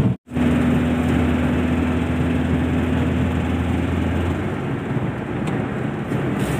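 Maruti Super Carry CNG mini-truck driving under a 1600 kg load, heard from inside the cab: its engine drones steadily over tyre and road noise. The engine tone drops away about four seconds in, leaving the road noise, and there is a split-second gap right at the start.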